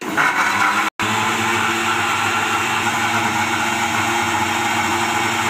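Electric mixer grinder running at speed, its steel jar grinding tomato, green chilli, coriander and salt into chutney. It is a loud, steady whirring that cuts out for an instant about a second in.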